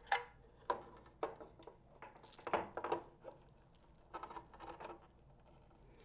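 Metal-cased laser power supply unit being slid into its bay in a laser cutter's chassis, with wiring pushed aside by hand. Irregular light knocks, clicks and scrapes of metal and plastic come several times, clustered in the first three seconds and again about four seconds in.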